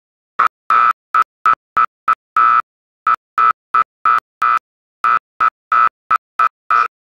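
Music chopped into short, loud bursts in an uneven rhythm, each holding the same high steady note, separated by dead silence.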